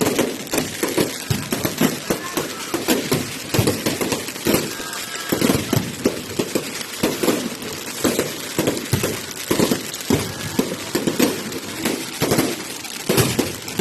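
Fireworks going off: a rapid, irregular series of bangs and crackles, several a second.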